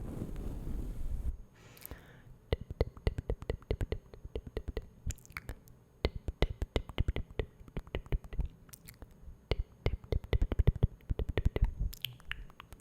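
Close-miked ASMR mouth sounds: many quick, irregular wet clicks and smacks, after a short soft hiss in the first second or so.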